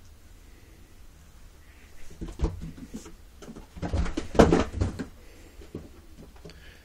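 Cat scrambling and jumping about a carpeted cat tree: a quick run of knocks, thumps and claw scrabbles starting about two seconds in, with the loudest thump a little past the middle.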